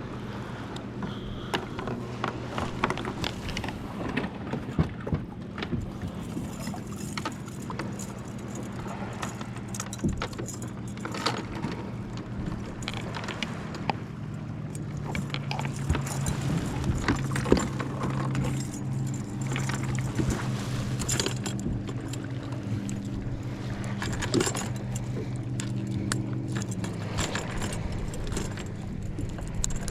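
Steady drone of a distant motorboat engine, louder for a stretch in the middle, with scattered light clicks and knocks of gear being handled in a kayak.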